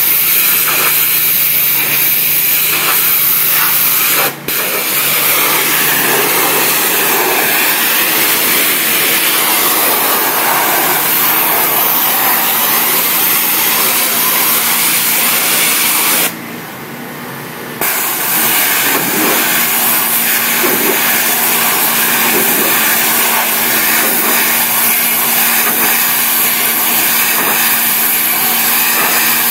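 Hot-water pressure washer at 3000 psi spraying an aggregate wall: a loud, steady hiss from the water jet over a steady hum from the machine. The spray breaks off for a moment about four seconds in, and again for about a second and a half around sixteen seconds in.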